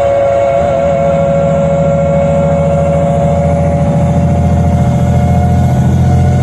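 Solaris Urbino 12 CNG city bus under way, heard from inside the cabin: the Iveco Cursor 8 six-cylinder gas engine, driving through a Voith automatic gearbox, runs with a steady drone, and a high whine holds one pitch above it.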